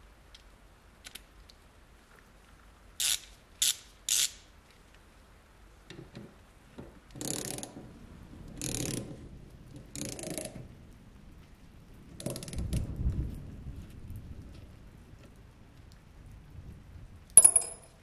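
Small socket ratchet clicking in short bursts, about half a second each, as it turns a screw out of a rusty air pistol's frame. A few sharp metal clicks come before it, and a single sharp click near the end.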